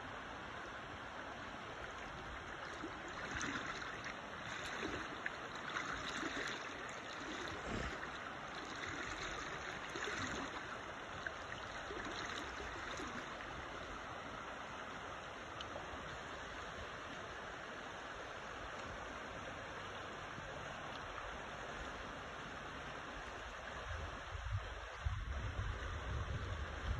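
River water flowing steadily, a continuous rush with a few slightly louder swells in the first half. A low rumble comes in near the end.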